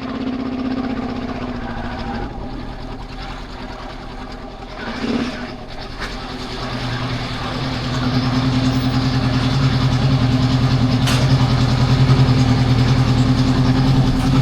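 Honda CL500 parallel-twin motorcycle engine running steadily. It grows louder about halfway through, then stops right at the end as it is switched off.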